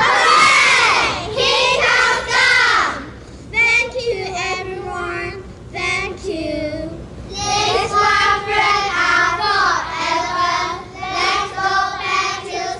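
A group of children singing together in chorus, their voices sliding up and down in pitch.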